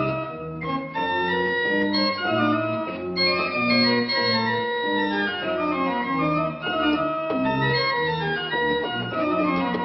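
Freshly restored late-18th-century baroque pipe organ by the Transylvanian builder Johannes Prause, played on manuals and pedals. Several voices move at once over a bass line of short, changing pedal notes.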